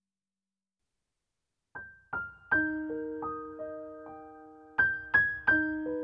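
Background piano music. After near silence, single struck notes begin a little under two seconds in and ring on as they fade, a few notes a second.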